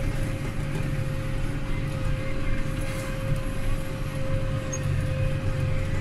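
John Deere 6140M tractor running steadily under load while pulling a disc plough, heard from inside the cab: a constant low engine drone with one steady high tone above it.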